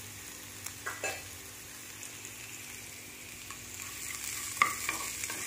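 Sliced onions and coconut pieces frying in oil in a non-stick pan with a steady sizzle, stirred with a wooden spatula that knocks and scrapes against the pan now and then, most sharply at about four and a half seconds in.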